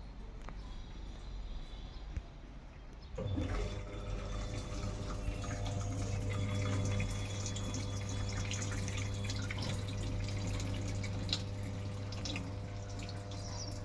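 Top-load washing machine starting up about three seconds in: a steady electrical hum begins suddenly and water runs into the tub, with small ticks and splashes, as the machine fills for the wash.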